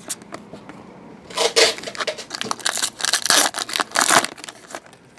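Foil wrapper of a 2014 Prizm soccer trading-card pack being torn open and crinkled by hand, a run of loud crackling bursts from about a second and a half in until near the end.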